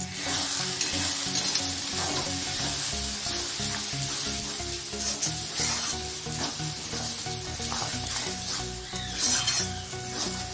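Onion-tomato masala sizzling in hot oil in a steel kadhai while a spatula stirs and scrapes through it, frying the freshly added chilli powder and turmeric into the masala.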